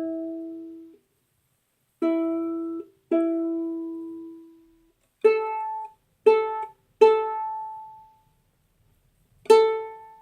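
Ukulele strings plucked one at a time while being tuned. A lower note rings from the start and is plucked twice more, left to ring out. Then a higher string is plucked four times, each note fading.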